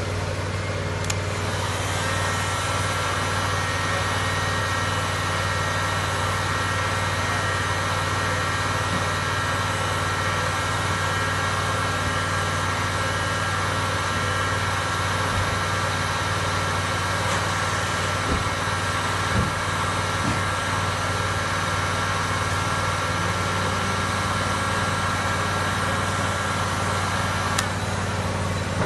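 A machine running steadily with a low hum, joined about two seconds in by a high steady whine that stops near the end.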